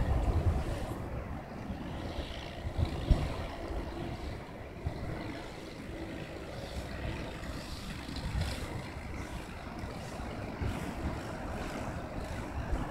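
Low, steady rumble of passing river traffic, with wind gusting on the microphone.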